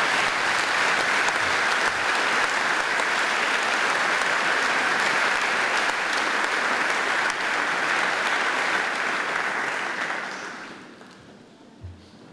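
Audience applauding, steady for about ten seconds and then dying away; a single low knock near the end.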